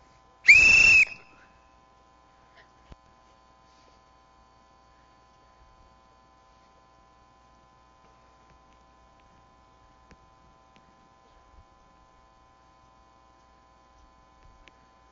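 A single short, loud, high-pitched whistle blast about half a second in: the start signal for a group to begin moving. After it, only a faint steady hum and a few faint ticks.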